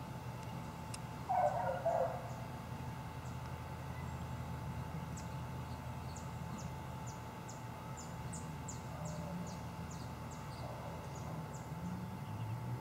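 Outdoor birdsong: a short, loud, rough call about a second in, then a run of thin, high, falling chirps, two or three a second, over a steady hum.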